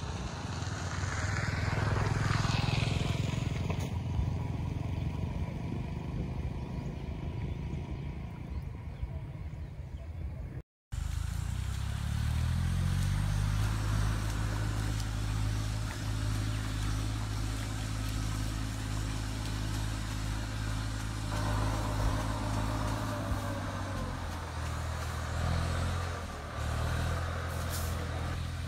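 An engine running steadily. It drops out for a moment about ten seconds in, comes back with its pitch stepping up briefly, then holds steady.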